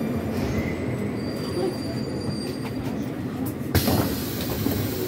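Metro train of the 81-740 type rumbling slowly into a station with a faint squeal of wheels or brakes. About four seconds in, a sudden loud clunk is followed by a steady hiss.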